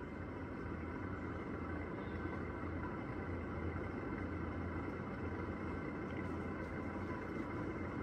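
A 2002 Emerson Zurich 52-inch ceiling fan running at speed: a steady low motor hum with a few steady higher whining tones over the whir of the blades. On the higher speeds its bearings are noisy, which the owner calls horrible.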